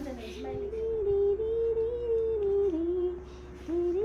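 A woman humming long, slowly gliding notes. One note is held for about two seconds, then it slides down, breaks off briefly and rises again near the end.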